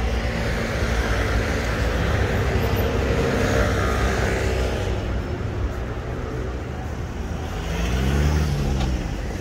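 City street traffic with a steady low engine rumble. One vehicle passes close by, swelling and fading over the first few seconds. Near the end another engine rises and falls in pitch.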